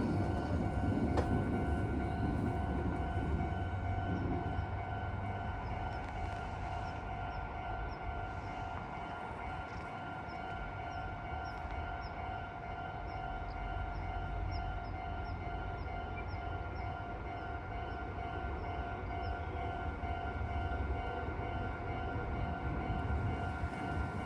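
Japanese railway level-crossing warning bell ringing on and on in a steady electronic tone, the sign that the barriers are down. Under it runs a low rumble, and a train's noise fades away over the first few seconds.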